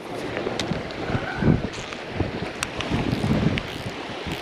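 Wind buffeting the microphone over the steady wash of surf, swelling in low rumbling gusts a couple of times, with a few small clicks.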